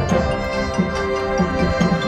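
Marching band playing its field show music: held chords with scattered drum and percussion hits.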